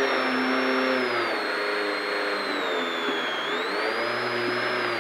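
Hyundai i20 WRC rally car's 1.6-litre turbocharged four-cylinder engine running at low revs as the car creeps along, heard from inside the cabin. A high thin whine rides over it, dipping and rising again twice.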